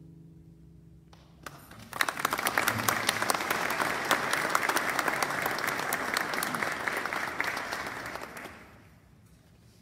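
The last notes of a classical guitar ring out and die away. About two seconds in, the audience starts applauding steadily, and the applause fades out near the end.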